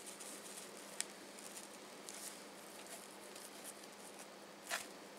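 Hands patting and rubbing dry seasoning rub onto a raw Chilean sea bass fillet: faint soft pattering and rustling of the loose rub, with a light click about a second in and another near the end, over a faint steady hum.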